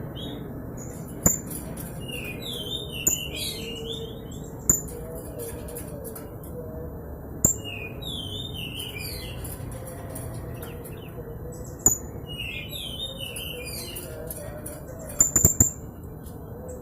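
Young blue-crowned hanging parrot (serindit) calling: three bouts of quick, high twittering notes, with sharp single high notes between them and a quick run of three near the end, over a steady low background hiss.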